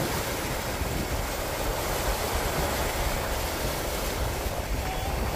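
Ocean surf washing onto a sandy beach, a steady rushing noise, with wind rumbling on the microphone.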